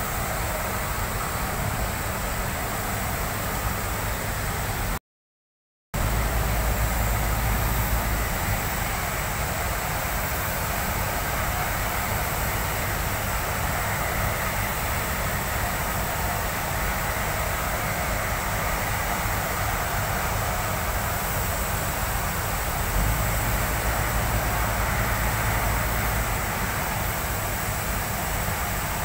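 Truck-mounted concrete pump running steadily during a pour: a constant mechanical drone with a deeper rumble swelling twice. It drops out completely for about a second some five seconds in.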